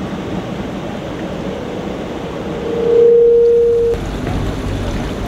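Steady hiss and rumble of a large indoor pool hall. One sustained mid-pitched tone swells over about two seconds and cuts off abruptly about four seconds in.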